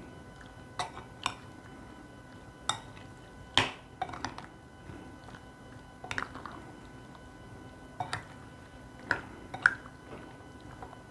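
Cubed raw chicken being mixed with spice paste and sauce in a bowl: irregular wet squelches and about a dozen sharp clicks against the bowl.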